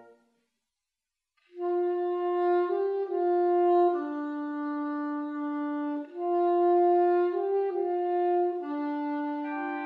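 Small wind ensemble, saxophone with flutes, playing slow held chords that change every second or two. It enters after about a second of silence, with a short break for breath about halfway through.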